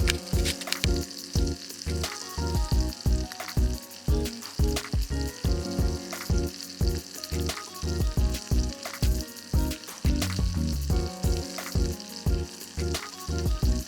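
Garlic shrimp sizzling and crackling in oil in a pan over a campfire. Background music with a steady beat plays over it.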